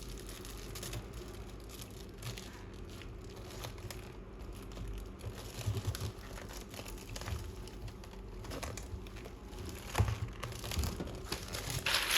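Intermittent crinkling and rustling, with scattered small clicks and a sharper knock about ten seconds in.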